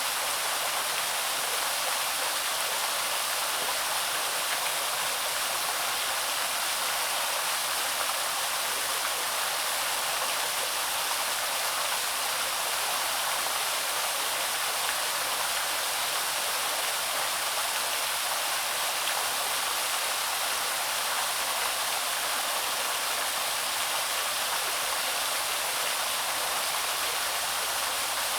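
Waterfall splashing steadily: an even, constant hiss of falling water, with little deep rumble beneath it.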